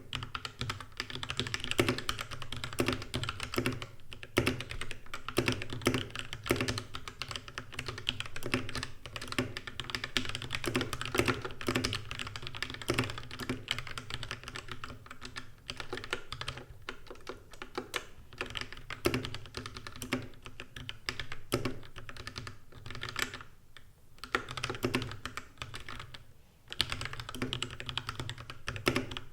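Typing on a mechanical keyboard with lubed Gateron Yellow linear switches: a dense, continuous run of keystrokes, with two short pauses near the end.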